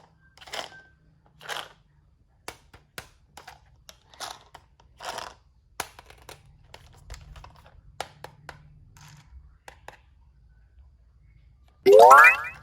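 Light clicks, taps and rustles of plastic toy pieces being handled, then near the end a loud, short tone sweeping quickly upward in pitch.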